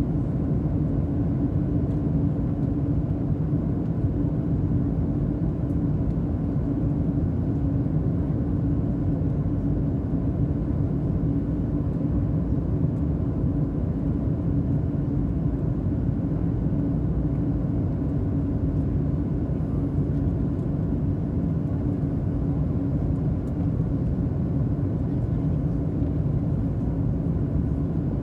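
Steady engine and airflow drone of a passenger airliner in flight, heard from inside the cabin, with a constant low hum running through it.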